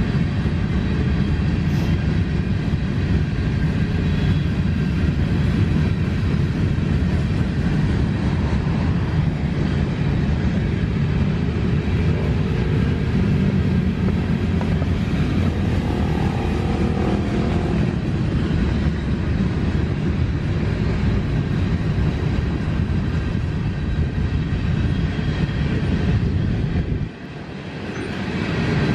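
Freight train of covered hopper cars rolling past, a steady rumble that dips briefly near the end.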